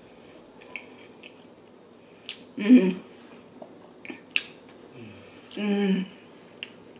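Close-miked chewing of soft chili cheese steak fries, with small sharp mouth and fork clicks. Two short hummed "mmm"s of enjoyment come about three and six seconds in; the first is the louder.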